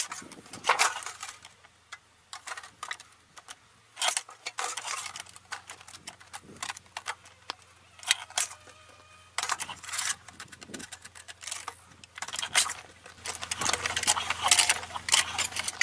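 Sheet metal being handled on a hand-operated combination shear, brake and slip-roll machine: irregular metallic scrapes, clinks and rattles as the thin sheet slides across the machine's table and is fed into the rolls.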